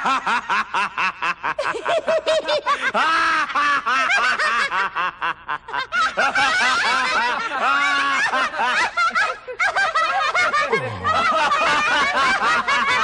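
A man laughing loudly and heartily in quick repeated bursts that go on for many seconds, with several voices laughing together near the end.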